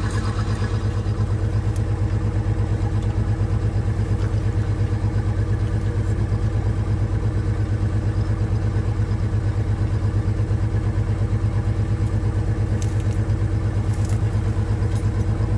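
An engine running steadily at a constant speed with a fast, even low pulsing beat, with a few light clicks near the end.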